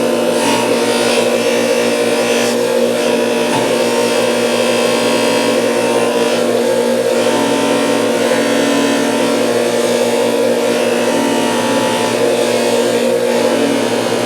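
Bench grinder motor running with a steady hum while steel pliers are pressed against a spinning abrasive flap wheel. The grinding hiss swells and eases as the pliers are worked against the wheel.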